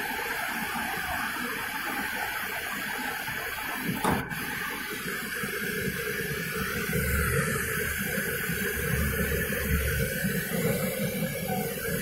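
LG MC-767W microwave oven running, with a steady fan-like hiss and a low hum. A sharp click comes about four seconds in, after which the hum grows stronger.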